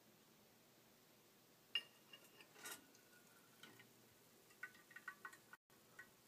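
Metal measuring cups clinking faintly against each other as one is tipped to pour molten bismuth into the other: a sharp clink about two seconds in, a short ring a second later, then a quick run of small clinks near the end.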